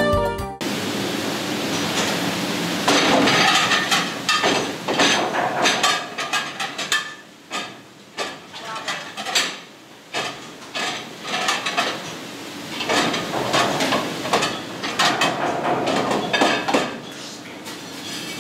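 Ceramic plates clattering and clinking as they are stacked into a dish rack at a commercial stainless-steel dishwashing station, over a steady hiss.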